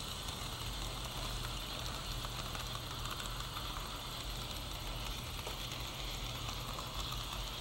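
HO scale model train running along the track: a steady mechanical whir and rattle of the motor and wheels on the rails.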